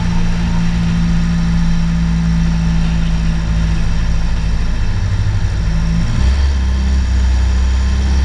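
Volkswagen Golf 1.9 TDI four-cylinder turbodiesel engine running at a steady pitch. About six seconds in, its note drops to a lower, deeper one.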